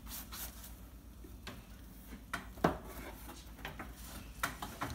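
Handling noise from painting a carved pumpkin: scattered light taps, knocks and rubbing of paintbrushes and hands against the pumpkin shell and the tabletop, with one sharper knock a little past halfway.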